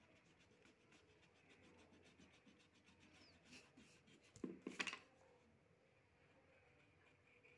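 Faint rubbing of an eraser on drawing paper, with a short louder scuff about halfway through.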